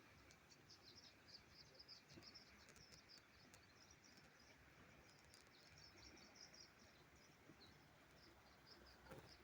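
Faint songbird calls: quick runs of short, high-pitched chirps, in two bursts about five seconds apart, over a steady low background hiss.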